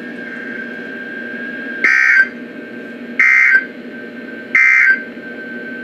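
NOAA Weather Radio sending the three short EAS/SAME end-of-message data bursts, harsh two-tone digital chirps each under half a second and about a second and a half apart, over faint steady hiss. They mark the end of the severe thunderstorm warning broadcast.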